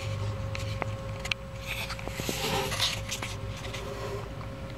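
Juvenile bearded dragon scratching and rustling in a plastic bowl of powder-dusted reptiworms, with a few light clicks, over a steady low hum. The rustling comes in a stretch from about a second and a half in to about four seconds.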